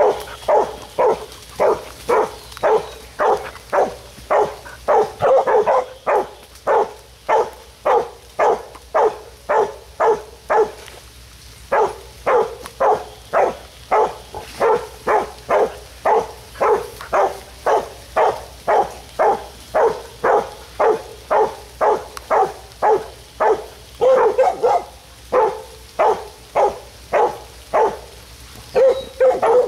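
Young hog-dog puppies barking in a steady, even run of about two barks a second, with a short pause about eleven seconds in.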